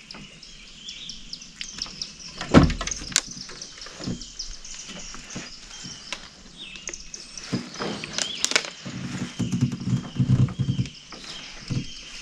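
Songbirds chirping in the trees, with knocks and clunks against a metal jon boat. The loudest knock comes about two and a half seconds in, and a quick run of low knocks comes near the end.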